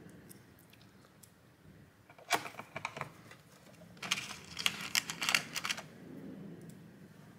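Small metal laptop screws clicking and rattling in a clear plastic parts tray as they are picked out by hand. A few clicks come a little over two seconds in, then a denser run of clicks from about four to six seconds.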